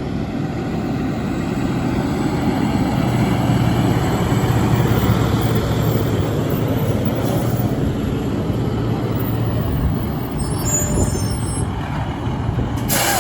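Fire engine's diesel engine running as it pulls up, a low rumble that swells and then eases off. A brief high squeal comes near the end, followed by a short hiss.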